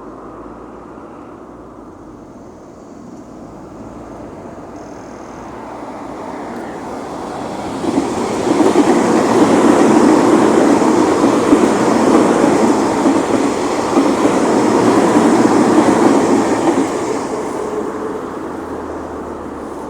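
Tobu 50090-series electric train running past, building as it approaches, loudest for about nine seconds, then fading as it moves away.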